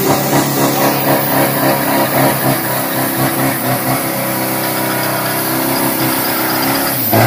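Drag-racing pickup truck's engine held at steady high revs during a burnout, the rear tyres spinning and smoking.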